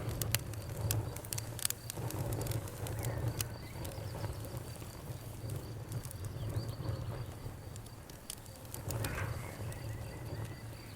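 Campfire crackling, with scattered sharp pops over a steady low rumble of burning wood, under a constant high insect trill.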